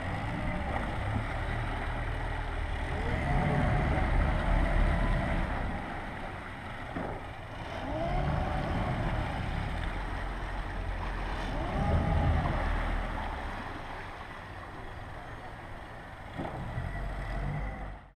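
Twin Suzuki outboard engines running at low speed, revving up and easing back down three times as the joystick shifts and throttles them for close-quarters maneuvering.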